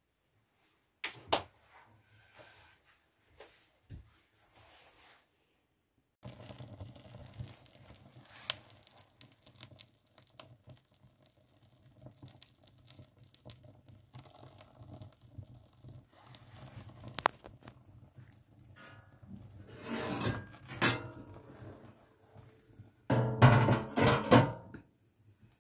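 Firewood fire in a brick stove's firebox: a few knocks of logs being laid in, then the fire crackling and popping. Louder clattering comes near the end.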